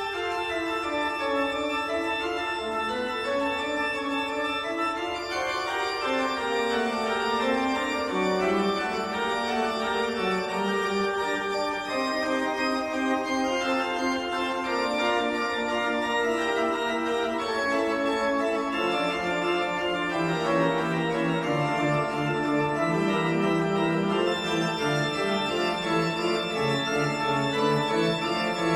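Background music of slow, held chords that change every second or so.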